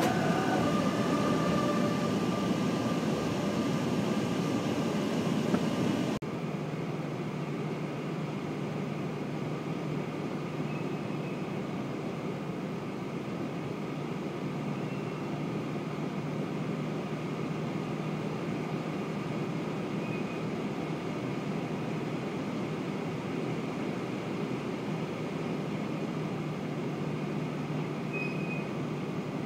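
Train running noise heard from inside a locomotive cab: a loud even rumble that drops abruptly about six seconds in, then a steadier, quieter rumble with a constant low hum as a train of container flat wagons rolls past on the adjacent track.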